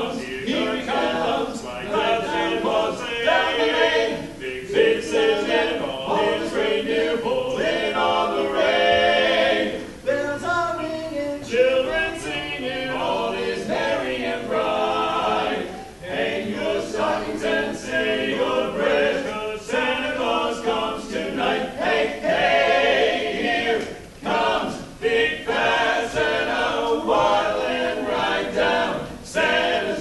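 Men's barbershop singers performing a cappella in close harmony, with a few brief pauses between phrases.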